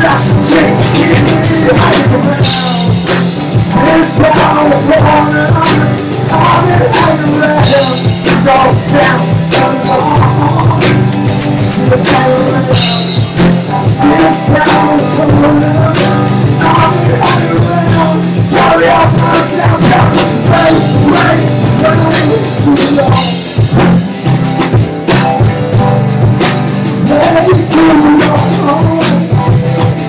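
Live rock band playing a song loudly: drum kit keeping a steady beat with cymbal crashes, guitars strumming, and a male lead voice singing.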